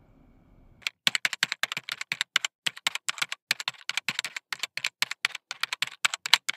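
Typing sound effect: rapid keyboard clicks, about eight a second, starting abruptly about a second in after near silence.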